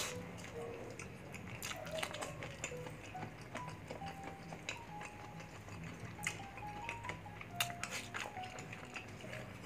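Crisp crackles and crunches of crispy bagnet pork skin being broken and chewed, with soft mouth sounds of eating rice, over quiet background music with a simple stepping melody.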